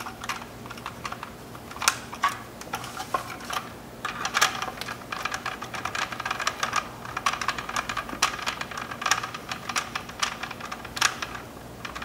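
Quick strings of small hard-plastic clicks and taps as a power window master switch is pressed and worked into its plastic door-panel bezel with a Phillips screwdriver, with a few sharper clicks standing out.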